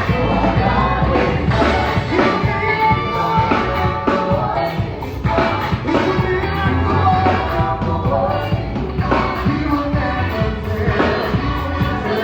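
A band playing with a singing voice over it: a steady drum beat and heavy bass under the melody.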